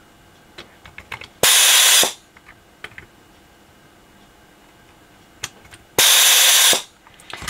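Vacuum desoldering gun sucking molten solder off the legs of a bridge rectifier on a circuit board: two short, loud hissing pulls of its vacuum pump, one about a second and a half in and one near the end, with a few light clicks in between.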